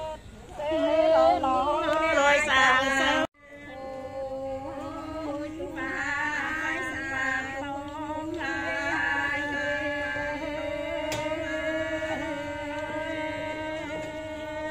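Voices singing a wavering, chant-like song. It breaks off abruptly about three seconds in, then carries on with long held notes.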